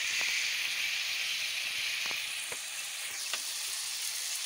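Chunks of meat sizzling in hot oil in a wok: a steady hiss with a few sharp pops and crackles.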